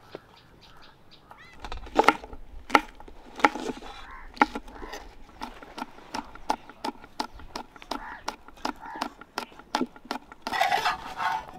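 Kitchen knife chopping green chillies on a wooden cutting board: a run of sharp knocks, about three a second. A brief call sounds near the end.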